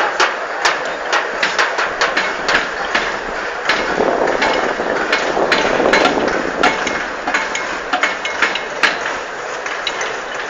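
Protesters beating drums: many sharp knocks, several a second and not quite in time with each other, over a steady crowd din.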